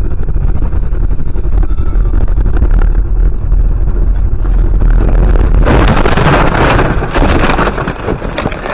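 Car running along a snowy road with loud road and wind rumble, then, about six seconds in, a harsh crash and scraping with many sharp cracks as it runs off the road into snow and tree branches.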